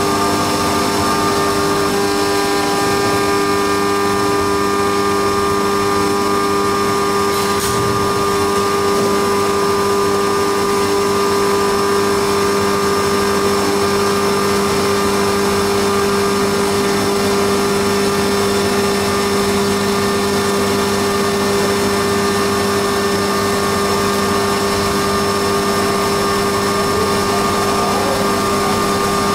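Haas CNC milling machine running steadily while cutting a cam on its rotary fourth axis: a constant machine hum with several steady whining tones over cutting noise, and one brief sharp tick about seven seconds in.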